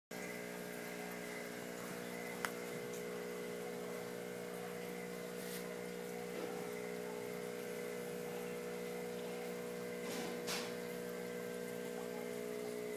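Steady electric hum of an aquarium air pump driving a sponge filter, with one sharp click about two and a half seconds in and a brief rustle about ten seconds in.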